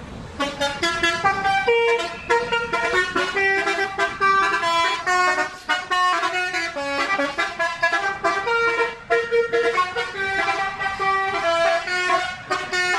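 A bus's telolet horn, a set of air horns, playing a jingle: loud pitched notes one after another, changing several times a second, starting about half a second in and running on with short breaks.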